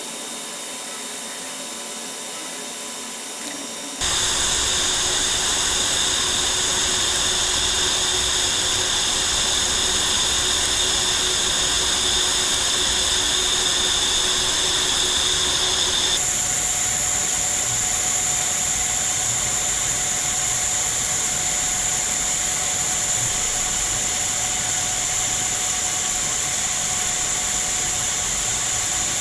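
TIG welding arc on thin-wall stainless steel pipe: a quieter steady hiss for the first few seconds, then the arc strikes about four seconds in and runs as a loud, steady hiss. Its tone shifts at about sixteen seconds.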